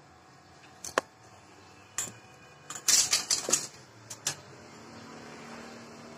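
Sharp metallic clicks and clacks as a motorcycle starter motor is handled in a steel bowl and battery clip leads are fitted to it: single clicks about a second apart, then a quick cluster about three seconds in.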